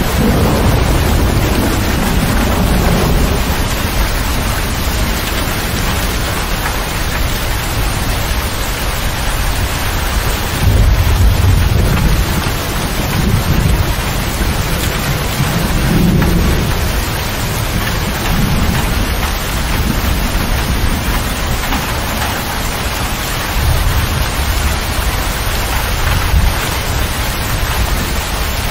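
Heavy rain drumming on a motor grader's cab roof and windows, heard from inside the cab, with low rumbles of thunder swelling and fading several times.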